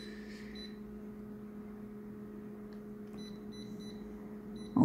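Konica Minolta copier's touchscreen control panel beeping as its keys are tapped: one beep at the start and a few quick short beeps about three seconds in, over the copier's steady low hum.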